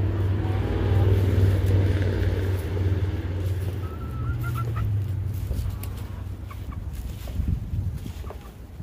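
Backyard chickens clucking with short calls a few seconds in, over a steady low rumble that fades out about halfway through.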